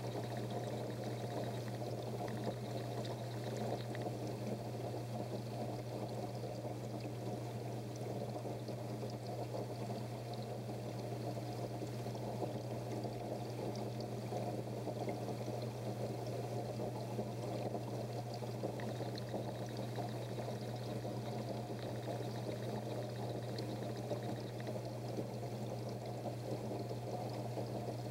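Steady splashing of running water circulating in a goldfish aquarium, with a constant low hum underneath.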